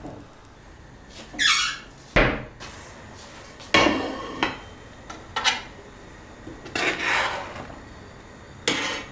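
Dishes and kitchen utensils being handled: a series of separate clinks and knocks, about seven spread through the stretch, one with a brief scrape about a second and a half in.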